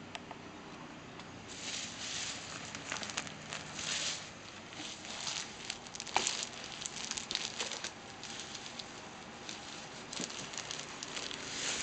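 Plastic bubble wrap crinkling and rustling in irregular bursts as hands handle and pull at it, with a few sharp clicks.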